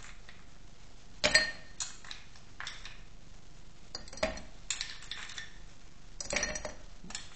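Ice cubes dropped one by one from metal tongs into an empty glass hurricane glass, clinking against the glass and each other. There are several separate clinks, roughly a second apart, the loudest a little over a second in.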